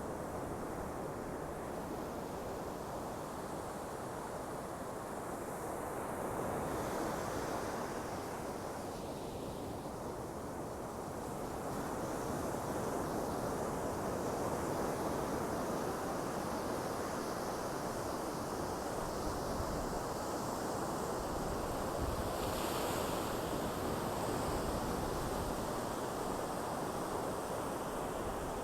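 Sea waves breaking and washing ashore in a steady, continuous rush that swells slowly, somewhat louder in the second half, with some wind on the microphone.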